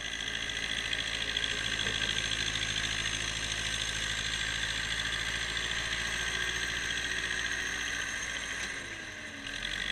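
Ursus C-360 tractor's three-cylinder diesel engine running steadily under load while pulling a seed drill through the soil. It dips slightly about nine seconds in and comes back up at the end.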